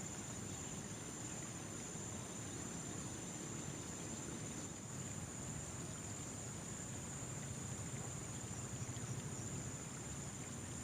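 Insects singing in one steady, high-pitched drone, over a low, even rumble.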